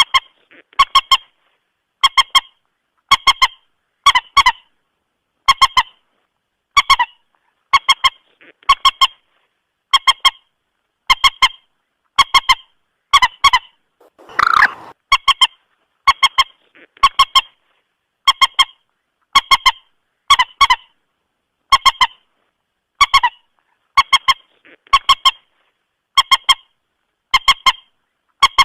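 Common moorhen (mandar batu) lure call, a short doubled call repeating about once every second and a bit, in a steady loop. One louder, rougher call comes about halfway through.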